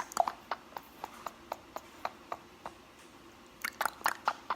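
A steady run of light, sharp clicks, about four a second, then a quicker cluster of clicks near the end.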